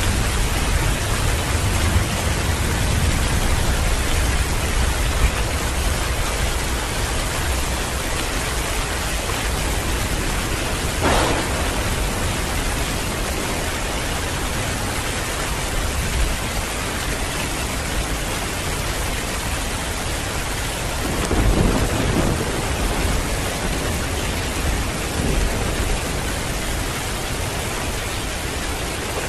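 Heavy rain pouring steadily, with thunder rumbling low underneath. A short sharp burst comes about a third of the way through, and the rumble swells again about two-thirds of the way through.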